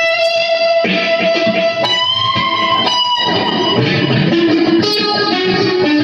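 Electric guitar played solo: long sustained notes with strong overtones, a new note about once a second, dropping to lower notes in the second half.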